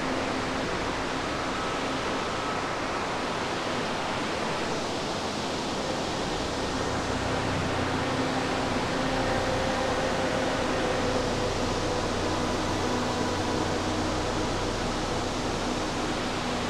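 Steady rushing of a nearby creek or falls, a constant even noise with no breaks.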